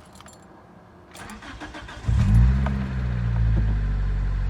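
A 2005 Toyota Corolla XRS's 1.8-litre 2ZZ-GE four-cylinder engine is cranked and catches about two seconds in. It flares up briefly, then settles into a steady idle. The car has been setting a cylinder-one misfire code (P0301), but the owner hears the engine running the same as before.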